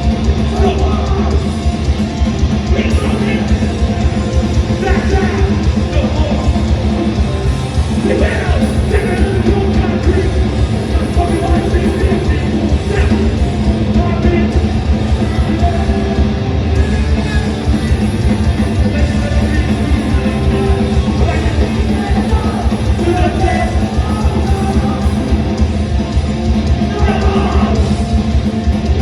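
A hardcore punk band playing live, with distorted guitars, drums and shouted vocals.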